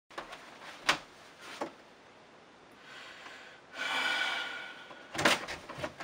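An interior door being opened: a couple of sharp clicks, a drawn-out rasping sound about halfway through, then a quick run of clicks and knocks from the latch and handle near the end.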